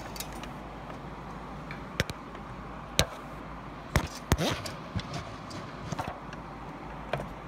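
Several sharp clicks and knocks of a miter saw and a tape measure being handled, with the saw blade lowered by hand against the tape, over a steady low hum; the saw motor is not running.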